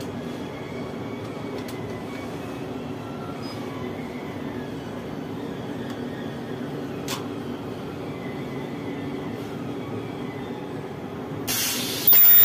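Steady low machine hum with a single click about seven seconds in; near the end a sudden, much louder high-pitched screech starts as the ultrasonic welder's horn presses on and fires into the plastic AC blower wheel.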